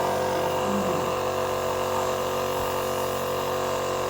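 B Tally air compressor running, a steady motor hum with an even drone and no change.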